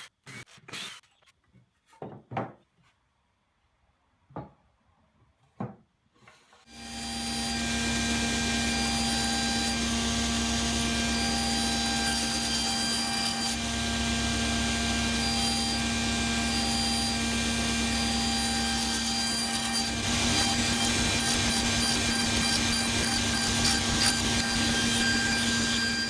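A few separate knocks of timber being handled, then a table saw starts about seven seconds in and runs steadily with a constant motor hum. It is cutting 20 mm-deep housings into two beams, passed over the blade on a crosscut sled.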